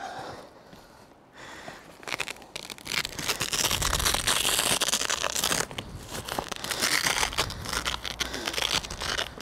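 Rolling camera bag's nylon fabric rustling and scraping as it is handled and moved about, getting louder and busier about two seconds in.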